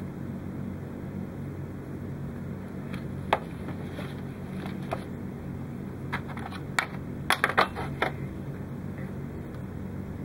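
Sharp clicks and clacks of a hard clear plastic box and separator being handled and set down on a workbench. A few scattered clacks come first, then a quick cluster of several near the end, over a steady low hum.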